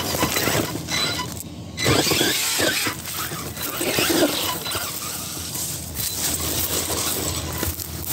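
RC rock bouncer driving over rocks and dirt: its motor revs up and down in bursts, and the tyres scrabble and knock against the stones.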